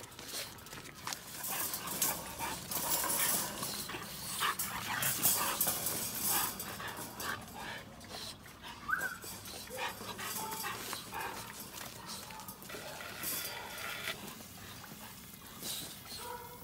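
Micro exotic bully puppies playing and scuffling, with many short clicks and rattles busiest in the first half, and one brief rising whimper about nine seconds in.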